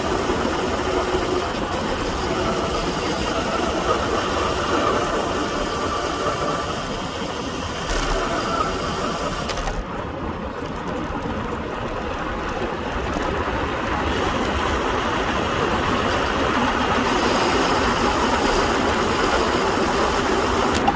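Wind and road noise from a road bike on the move: a steady rush of air over the microphone with tyre hum underneath. The sound turns duller for a few seconds around the middle.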